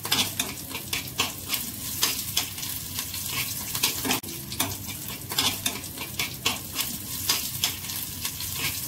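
Green chillies and mustard seeds sizzling in hot ghee in a small metal pan, stirred with a spoon that scrapes and clicks against the pan many times.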